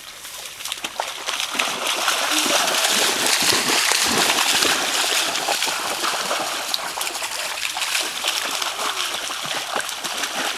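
Alaskan Malamute puppies splashing as they run and wade through shallow lake water, a continuous churning splash that builds about a second in and is loudest a few seconds later.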